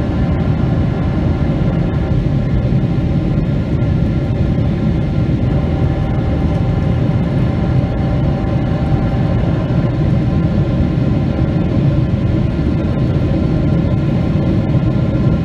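Steady cabin drone of a Boeing 777-300ER in flight, heard from a window seat beside its GE90-115B engine: an even low rumble with faint steady whine tones above it.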